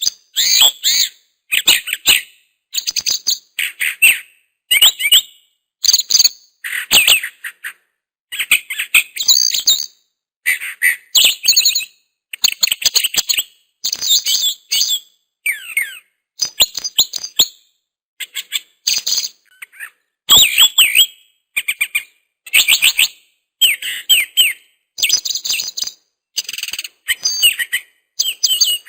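A songbird chirping and trilling in short, rapid phrases of high notes, about one phrase a second with brief silent gaps between them.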